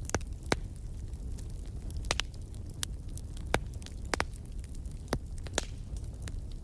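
Wood fire burning in a fireplace: irregular sharp crackles and pops from the burning logs, several louder ones scattered through, over a steady low rumble of the flames.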